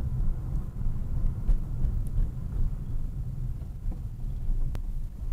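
Steady low rumble of a car's engine and tyres heard from inside the cabin while driving, with two faint clicks.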